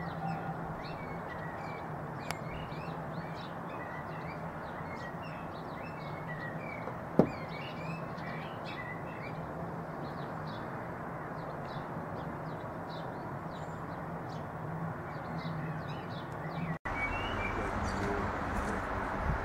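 Many small birds chirping and twittering over a steady low hum, with one sharp click about seven seconds in. Near the end the sound cuts abruptly to a louder, even rushing noise.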